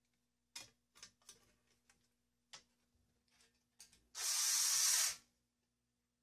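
Light clicks and knocks of a sheet-metal blade guard being handled and fitted onto an angle grinder. Then a cordless screwdriver runs for about a second, driving a screw to fasten the guard, with a loud hissing buzz.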